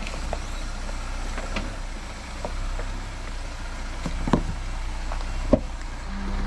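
Jeep engine running low and steady as it crawls along a rough trail, with scattered sharp knocks and clunks, the two loudest about four and five and a half seconds in. Music starts just before the end.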